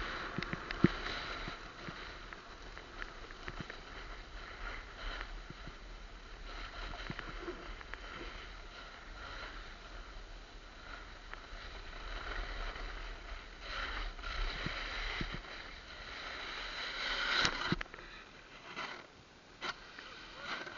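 Snowboard sliding and scraping over firm, chattery piste snow, a continuous hiss that swells through the turns and peaks in a harder scrape near the end. A single sharp knock about a second in.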